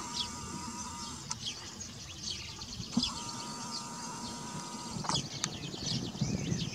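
Small songbirds chirping and singing in the background, many quick high notes throughout. Two longer, steady, lower-pitched calls stand out: one ending about a second in, and another from about three seconds in to about five seconds in.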